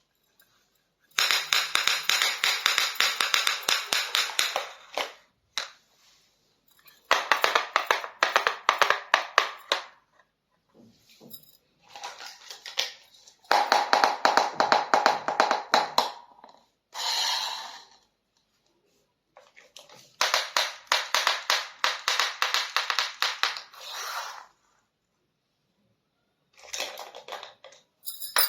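Small plastic toy pieces and their packaging handled by hand: bursts of rapid crinkling and clicking, each lasting a few seconds, with short quiet gaps between them.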